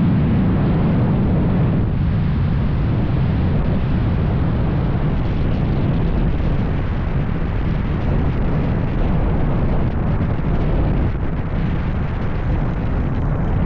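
Steady, loud rush of wind buffeting an outside-mounted camera's microphone, with a light airplane's engine running underneath.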